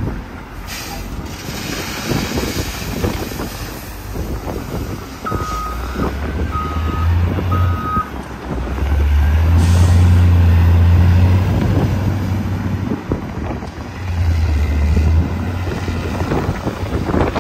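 A heavy diesel vehicle's back-up alarm beeps three times, about a second apart, while its engine runs with a loud low rumble that swells about halfway through and stays up for a few seconds.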